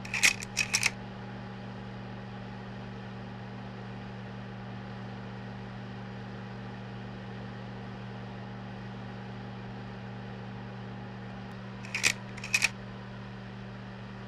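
Projector running with a steady electrical hum. Twice, about half a second in and again about twelve seconds in, its advance mechanism clatters in a quick run of three or four clicks as it moves on to the next frame.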